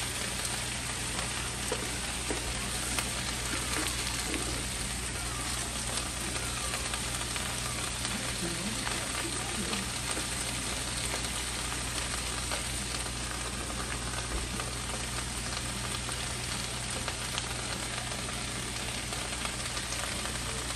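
Chopped cabbage sizzling in bacon grease in a hot skillet: a steady sizzle with small pops as the cabbage is pressed into the pan.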